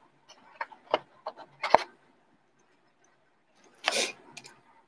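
Trading cards and cardboard being handled: a few soft taps and clicks in the first two seconds, then a short rustle about four seconds in.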